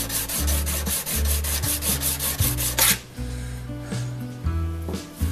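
A brazed tungsten carbide lathe tool being honed by hand on a diamond sharpening plate. It makes a fast, even, rhythmic rubbing of several strokes a second that stops abruptly about three seconds in. Background music plays underneath.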